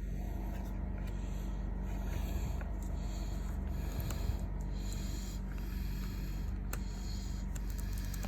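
Steady low electrical hum under faint rustling and a few scattered soft clicks.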